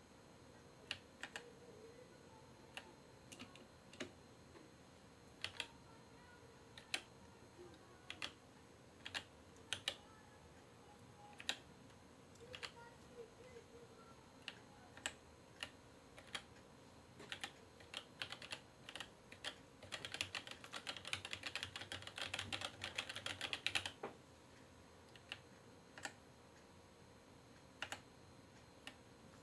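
Keys of a Womier K66 acrylic mechanical keyboard being pressed: scattered single keystrokes, a fast flurry of typing about two-thirds of the way through lasting some four seconds, then a few more single presses.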